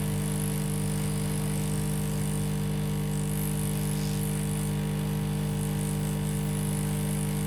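Hot-air rework station running steadily, a constant hum with a high hiss, while it heats a MOSFET on the motherboard to desolder it.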